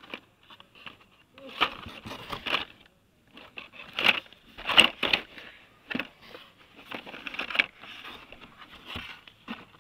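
Carded Hot Wheels cars being flipped through in a cardboard box: plastic blister packs and card backings rustling and clacking against each other in irregular bursts.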